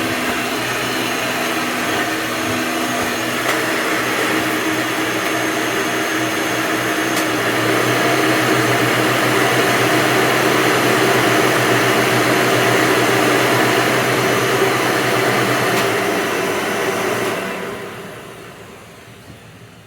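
Hoover Elite-series upright vacuum cleaner running steadily, a little louder about eight seconds in, then switched off and winding down near the end.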